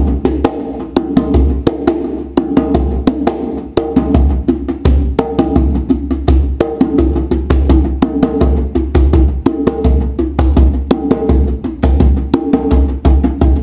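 Djembe played with bare hands: a fast, continuous rhythm of sharp strokes with ringing tones, and deep low thumps recurring among them.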